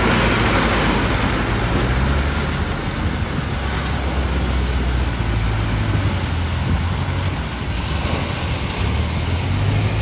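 Farm machine's diesel engine running steadily under load, a low drone with a broad rattling wash over it; the drone eases in the middle and grows again near the end.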